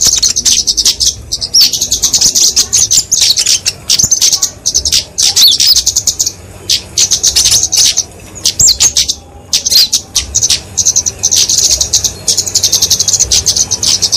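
Flowerpecker (kemade) giving rapid strings of high, thin chips and short twittering trills in quick runs with brief pauses: its agitated fighting calls.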